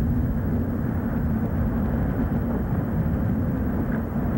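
Hurricane-force wind blowing hard over a camcorder microphone: a steady, dense low rumble with no letup.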